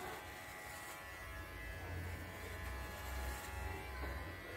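Electric hair clippers buzzing steadily as they are run over a man's short hair.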